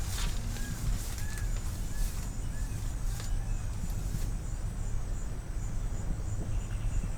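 An insect trilling in a high, fast-pulsing steady tone that starts a couple of seconds in, with a few short bird chirps early on and a steady low rumble underneath.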